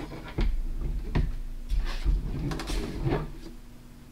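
Handling noise as an aluminium beadlock wheel with a soft rubber crawler tire is pushed onto the rear axle of an RC crawler: a few light knocks and clatters, roughly a second apart, with rustling between them.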